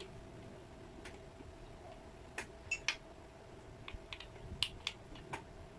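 Light metal clicks and ticks as a palm router's collet and collet nut are handled and fitted back onto its spindle by hand, an uneven scatter of small taps with a few sharper ones about halfway through.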